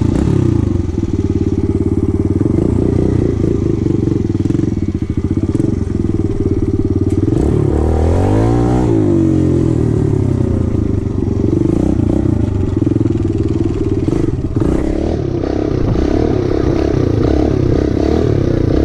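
Small 110 cc four-stroke dirt bike engine running steadily while being ridden. About eight seconds in it revs up and then drops back.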